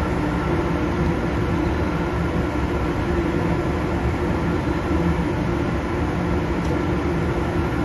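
Steady machinery drone with a constant low hum, running unchanged throughout.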